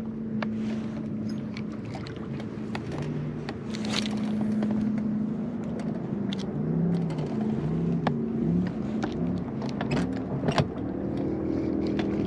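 Boat motor running with a steady hum, its pitch wavering for a few seconds around the middle, with scattered clicks and knocks from the boat.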